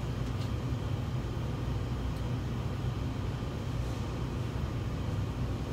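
Commercial kitchen machinery running: a steady low rumble with a faint thin whine above it.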